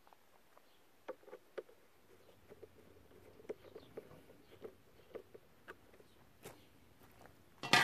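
Light irregular clicks and scrapes of a screwdriver working the screws of a bread maker's plastic lid hinge, then one sharp knock with a brief ringing near the end.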